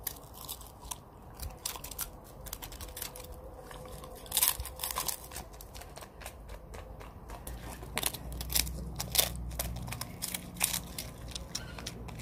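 Chinese crested dog biting and chewing a wafer cone of dog ice cream, with irregular sharp crunches, louder in clusters about four seconds in and again from about eight seconds on.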